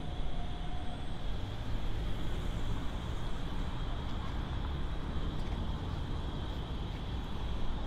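Steady city street noise: a constant low rumble of road traffic, with a steady high-pitched hum running through it.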